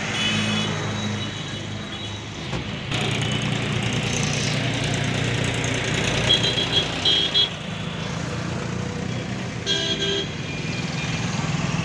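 Street traffic going by, with short vehicle horn toots near the start, a cluster a little past halfway and another near the end, over a steady low hum.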